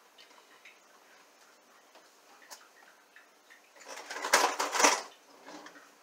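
Kitchen utensils clattering for about a second, a little under four seconds in, as a whisk is picked up. Before that there is only faint room tone with a single light click.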